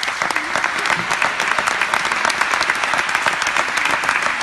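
Audience applauding: many people clapping in a steady, dense patter that is already at full strength at the start.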